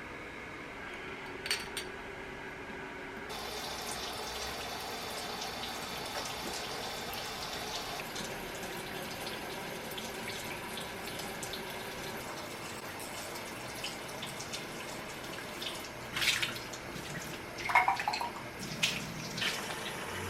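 Water running steadily from a tap into a sink, turned on about three seconds in. Near the end come a few sharp knocks and clinks of things being handled.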